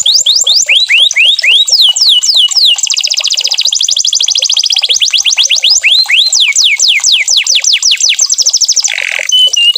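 Domestic canary singing loudly in quick runs of repeated falling whistled notes. A very fast, even trill comes about three seconds in, then slower falling notes, and a short harsh buzzy phrase comes near the end.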